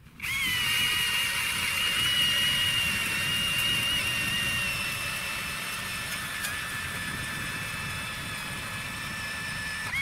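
Motor-driven ice auger boring a hole through river ice: a steady high motor whine that sags slowly in pitch as it works, starting abruptly and stopping near the end.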